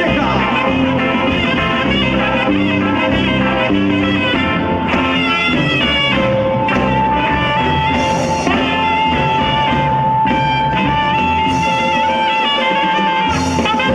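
Live band of saxophones, electric guitars, drum kit and congas playing an instrumental dance tune, with one high note held for several seconds in the middle.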